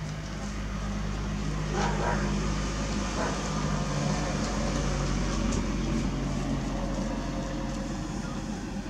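A car driving past on the road, its engine and tyre noise swelling to a peak mid-way and easing off near the end, over a steady low hum.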